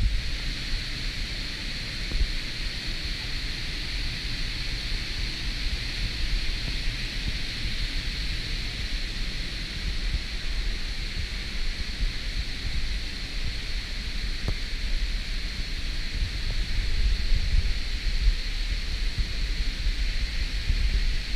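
Steady rush of water from a gorge creek and its small waterfalls, with wind buffeting the microphone as an uneven low rumble.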